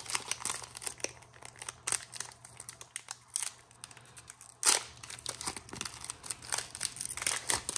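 Foil wrapper of a Pokémon booster pack crinkling as it is torn open, in a run of small crackles with a louder one about halfway through.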